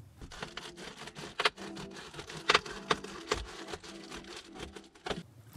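Sheet of Reflectix foil bubble insulation crinkling and crackling as it is handled and fitted to an SUV window, heard from inside the vehicle, with irregular clicks and a few louder snaps.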